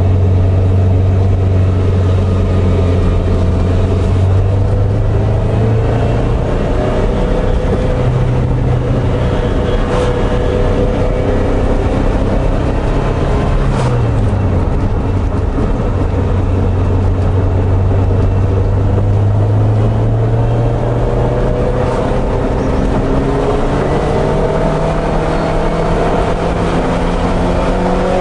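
Ferrari 308 GT4's V8 engine running under way, heard from inside the cabin. Its note holds fairly steady, drops about halfway through, then climbs steadily over the last several seconds as the car accelerates.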